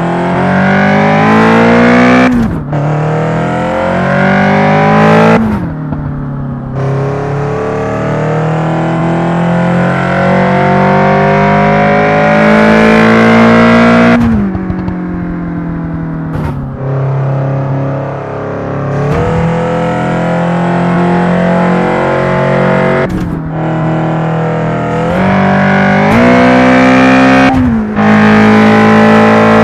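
A 1990 car's engine accelerating through the gears. The revs climb steadily, then drop sharply at each gear change, several times over.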